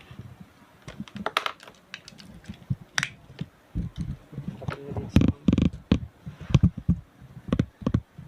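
Irregular clicks, taps and low knocks of gear being handled, busiest and loudest in the second half.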